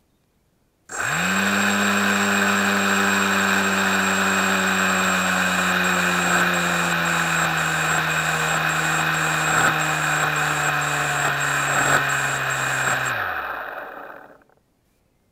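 Small drone's electric motors starting abruptly about a second in and running at a steady hum, its pitch sinking slightly, then spinning down and stopping near the end. The drone is lying in grass after crashing from a propeller failure.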